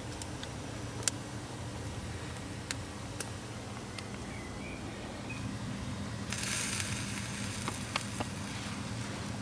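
Chicken, pork and sausages sizzling on a charcoal grill, with a few sharp pops of fat, the loudest about a second in. A brief louder hiss comes about two-thirds of the way through.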